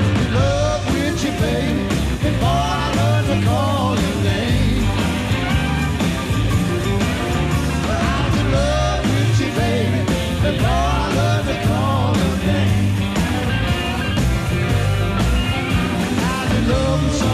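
Live rock band playing at full volume, with a lead line that bends up and down over bass and drums.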